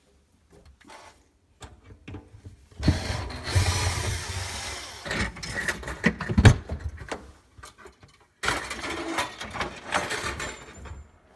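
Power drill/driver running in two bursts of a few seconds each, with clicks and knocks between, as it unscrews the mounting clips that hold an undermount sink to the underside of the countertop.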